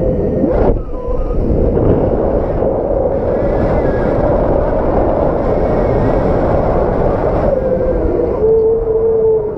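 Strong gusting wind buffeting the microphone, a dense continuous rumble with a wavering howling tone that dips and swells. It grows brighter and more hissing through the middle of the stretch.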